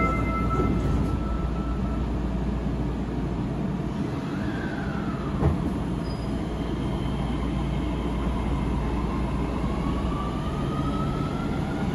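Osaka Metro 30000 series subway car running, heard from inside: a steady low rumble of wheels and running gear with thin motor whines that rise in pitch about four seconds in and again near the end, as the train runs into a station.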